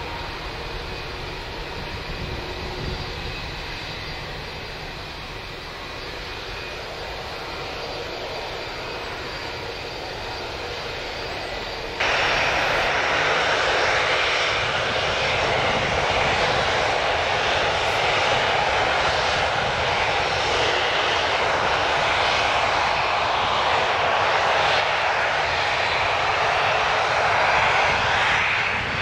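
Distant airliner jet engines as a low, steady rumble. About 12 seconds in it cuts to a Boeing 737-300's CFM56 turbofans running close by, much louder: a steady jet rush as the airliner moves along the runway.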